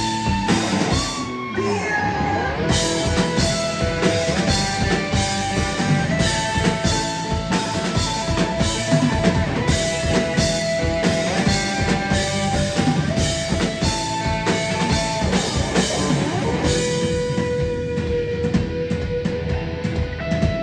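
Rock band playing live: a drum kit keeps a steady beat under guitars, with long held melody notes and a few bent notes.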